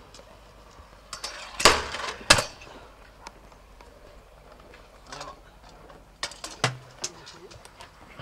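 Metallic clatter and knocks from stunt scooters on concrete: two loud impacts about two seconds in, then lighter clicks and a dull thump a few seconds later.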